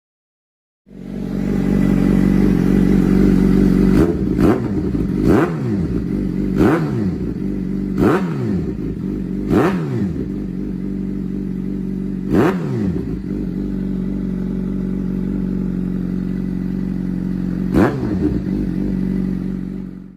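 Suzuki GSX-R750's inline-four engine through an aftermarket exhaust, idling steadily and blipped about eight times, each rev rising and falling quickly. The blips come in quick succession at first, then two more further apart.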